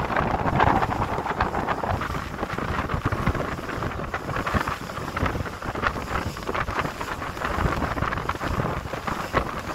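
Strong wind buffeting the microphone on the open deck of a boat, gusting unevenly over the sound of a choppy sea.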